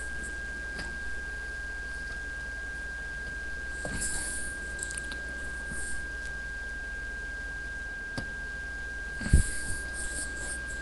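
A steady high-pitched electronic tone with a low hum underneath, with a few faint clicks and rustles and a low thump near the end.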